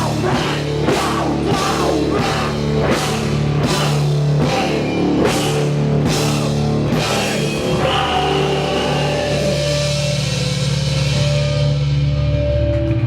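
Heavy rock band playing: drum kit with a cymbal crash about twice a second over guitars holding low notes. About seven seconds in the drums stop and a held chord rings out, its brightness fading away.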